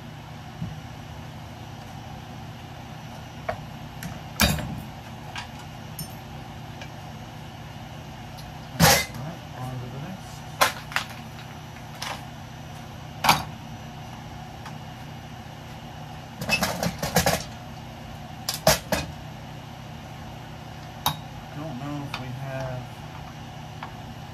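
Metal scrap being handled and knocked about: irregular sharp clanks and knocks a few seconds apart, with a quick run of them about two-thirds through, over a steady background hum.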